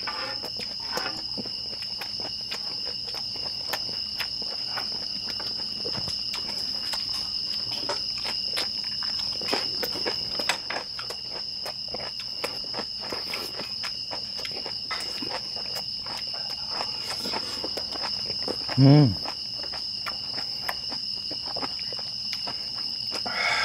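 Crickets chirring steadily, with scattered clicks and scrapes of wooden spoons on a large round griddle pan while two people eat. About nineteen seconds in, one short, loud vocal sound that drops in pitch.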